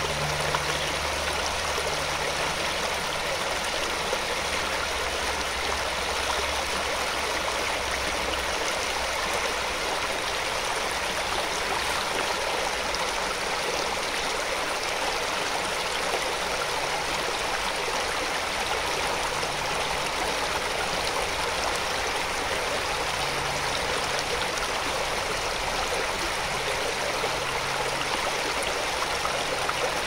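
Shallow rocky stream rushing steadily over boulders in small white-water cascades, a constant even rush of water.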